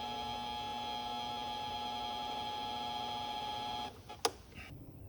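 Mini-lathe running at a steady speed, its variable-speed motor giving a constant whine of several fixed pitches. The motor stops about four seconds in, followed by a single short click.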